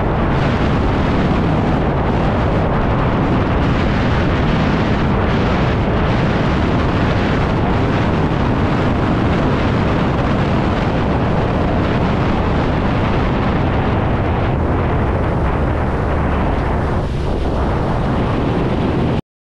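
Loud, steady wind rumble buffeting the microphone, which cuts off suddenly near the end.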